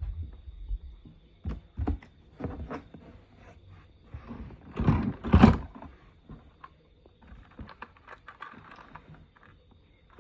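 Toys and packaging being handled, giving irregular clicks, light knocks and scraping, with one louder knock and rustle about five seconds in.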